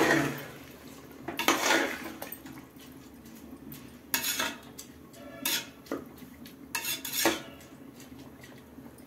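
Metal spoon scraping and clinking against the side and bottom of a metal pot while stirring soaked basmati rice into wet chicken gravy, in a string of irregular strokes.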